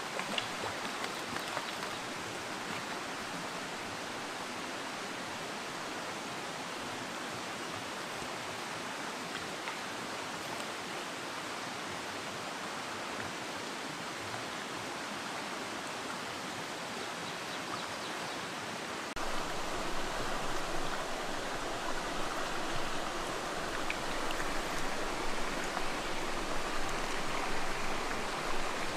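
Small rocky stream flowing steadily, an even rush of water; about two-thirds of the way in it becomes louder.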